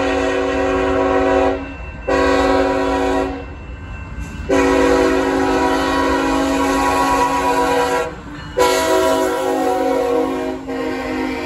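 CSX freight locomotive's air horn sounding its grade-crossing signal: a blast ending about a second and a half in, a short blast, a long blast of about three and a half seconds, then another long blast held as the locomotives pass, growing weaker near the end.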